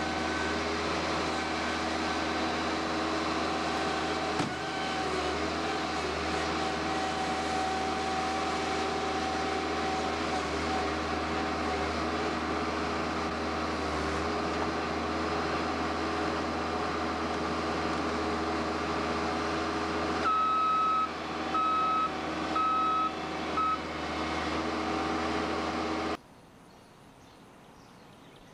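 Bobcat S150 skid-steer loader's diesel engine running steadily, with four beeps of its backup alarm about three-quarters of the way through. Near the end the sound cuts off suddenly to a faint background.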